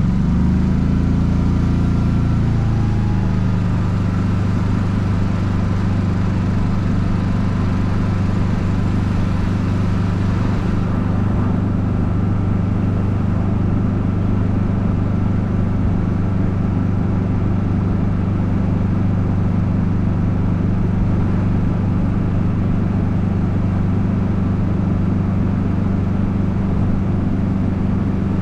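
Golf cart engine driving along a road, its pitch rising as it speeds up over the first couple of seconds, then easing off and running at a steady pitch.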